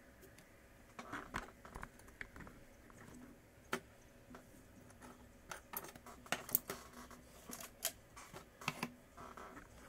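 Light, irregular clicks and taps of small tools and tablet parts being handled during screen-replacement work. The clicks come sparsely at first and more thickly in the second half.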